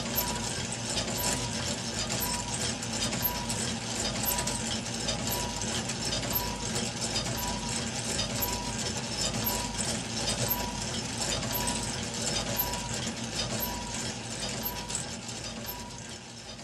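Meccano model twin-cylinder steam engine running, its cranks, linkages and flywheel clattering steadily, with a short squeak repeating at a regular beat. The sound fades down near the end.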